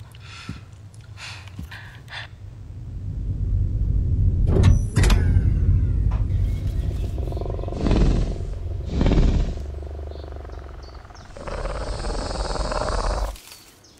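Sound-designed effects: a deep rumble that builds, with a sharp screech about a third of the way in and two heavy swells after it. Near the end a loud hissing roar cuts off suddenly.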